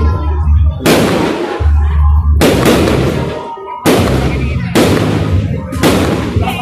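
Fireworks going off: five loud bangs about a second apart, each followed by a long crackling, echoing tail.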